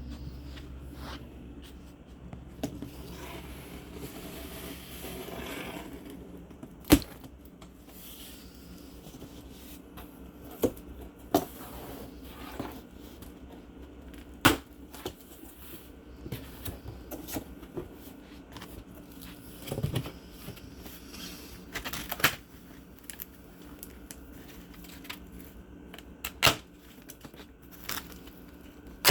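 Cardboard box and packaging being handled: scattered knocks and sharp taps, with scraping and tearing or rustling between them.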